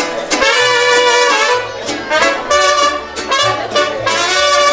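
Brass band music: horns playing held chords and phrases over a low bass line.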